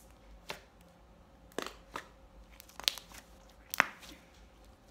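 Pink homemade sand slime being poked and pulled apart by hand, giving a handful of short, sharp snapping and crackling pops, the loudest near the end.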